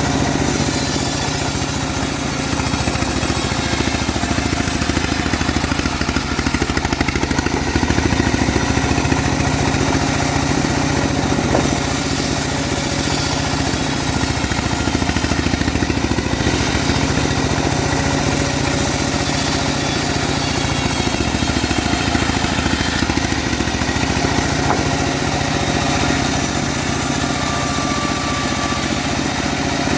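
Homemade bandsaw sawmill running steadily, an engine drone with a hiss in the treble that comes and goes every few seconds as it saws teak.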